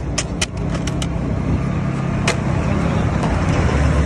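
Motor vehicle engine running close by, a steady low rumble. A few sharp crackling clicks in the first second and one about two seconds in come from crisp fried chicharrones being lifted with metal tongs.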